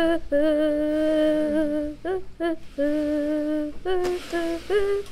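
A voice humming a slow wordless tune in a few long held notes, with short slides between them.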